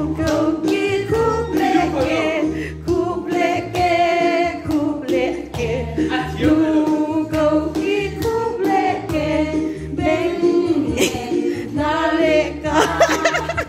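A song playing: a melodic singing voice over a steady bass line.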